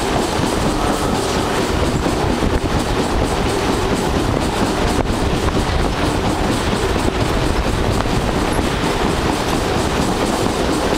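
Steady running noise of a passenger train's wheels on the track, with a clickety-clack rhythm, heard from aboard the moving train.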